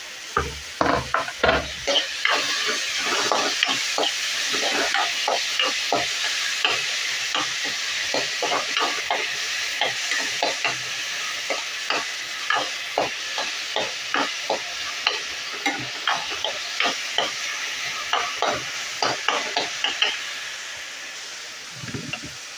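Chopped vegetables (onion, capsicum, carrot and tomato) sizzling in hot oil in a pan while a spatula stirs them, scraping and tapping against the pan about once or twice a second. Near the end the stirring stops and the sizzle dies down, with one dull knock.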